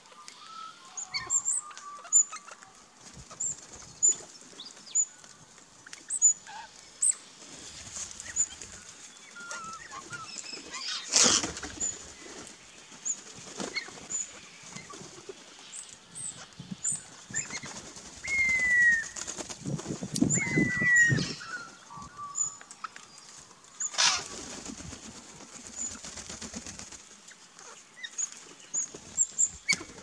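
Birds at a backyard feeding area: wings flapping in loud bursts several times, over frequent short high chirps and a few downward-sliding whistled calls.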